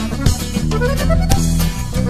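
Live norteño band instrumental with no singing: an accordion melody over bass and drum kit.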